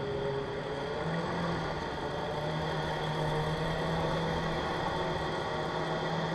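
Historic single-seater racing car's engine idling steadily, its pitch lifting slightly a couple of times.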